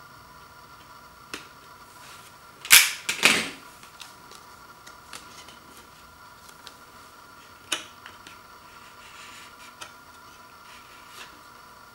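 Card CD mailer being slit with a utility knife and its contents handled: two loud, short rips of paper and card about three seconds in, then a sharp click near eight seconds and a few light ticks of paper handling.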